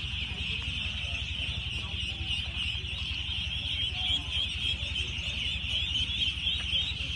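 A large flock of ducklings peeping all at once, a dense, unbroken chorus of high chirps over a low steady rumble.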